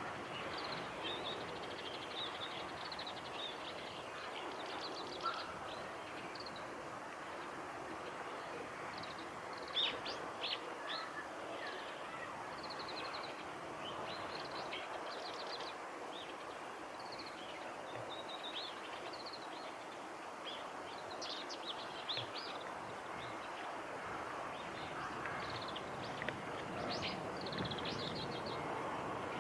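Oriental greenfinch singing: scattered short high twitters and rapid trilled phrases, repeated throughout, over a steady background of distant environmental noise.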